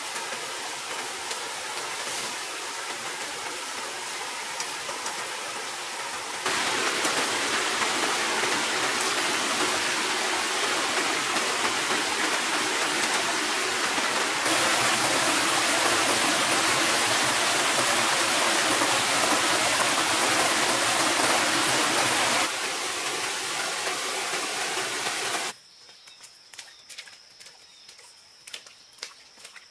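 Water of a small stream rushing and splashing over rocks at a little cascade, a steady rushing that jumps louder and softer in steps. Near the end it drops away to a quiet bed with scattered light clicks and a thin high steady tone.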